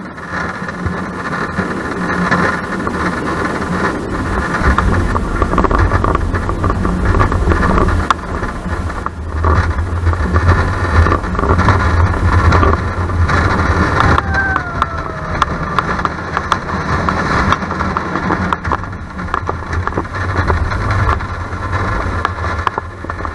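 Small steel family roller coaster train running along its track: the wheels rumble and rattle over the rails, with wind on the microphone. A brief falling squeal comes about halfway through, and the rumble eases near the end as the train comes back into the station.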